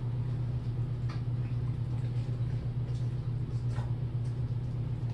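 A steady low hum, with a few faint clicks about a second in and again near four seconds.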